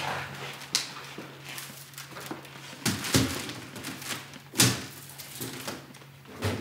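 A handful of separate knocks and thuds as a person walks across a wooden floor and sets things down on a table, over a steady low hum.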